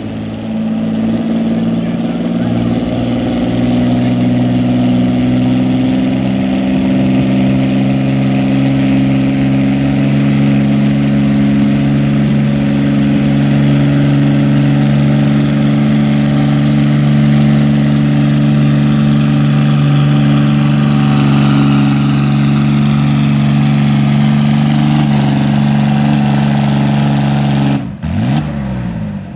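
John Deere farm-stock diesel tractor pulling a weight-transfer sled at full throttle, its engine running loud and steady under heavy load. Near the end the revs fall away sharply as the pull is flagged to a stop.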